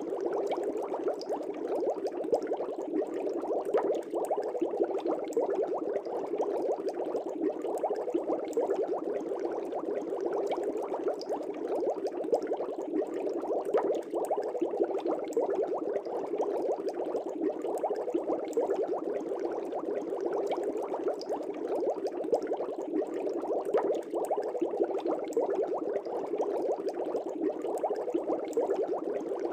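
Aquarium air bubbles rising and breaking at the water surface: a steady, dense bubbling with constant small pops.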